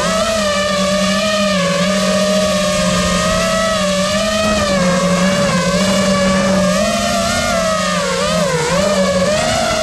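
Electric motors of a radio-controlled model running with a steady whine, its pitch wavering up and down with the throttle; the dips are deepest near the end.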